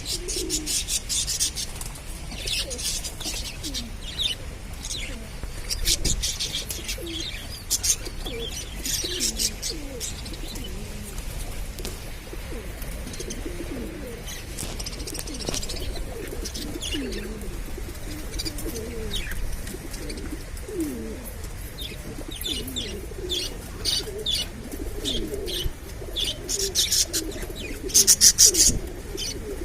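Pigeons cooing over and over, with budgerigars chattering in quick high chirps that come in bursts, the loudest near the end.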